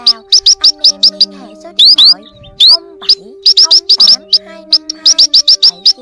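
Rapid runs of short, sharp, high chirps from young munias, several a second, with a few quick rising calls mixed in. Used as a lure call for trapping these birds. Low held background tones sit underneath.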